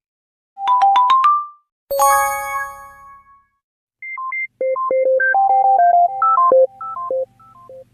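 A run of iPhone-style notification tones: a quick rising chime of about five notes, then a single bright bell-like ding that rings out, then a short hopping marimba-like jingle of a dozen or so notes.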